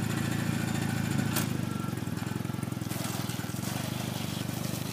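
Roketa 250cc cruiser motorcycle engine running steadily at low revs as the bike pulls away slowly, with one sharp click about a second and a half in.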